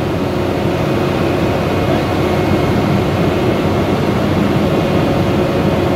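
Type 3 wildland fire engine running steadily at high idle with its fire pump engaged: a constant drone with a few steady tones held over it.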